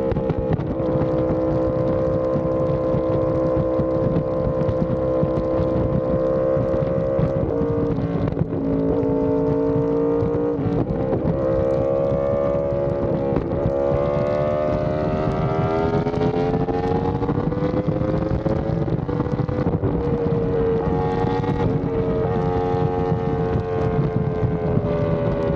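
Yamaha R1M's crossplane inline-four engine through an SC Project exhaust, running under way at a steady cruise. The note breaks and steps in pitch a few times in the first half, as with gear changes, then climbs slowly in the second half under acceleration, over rushing wind.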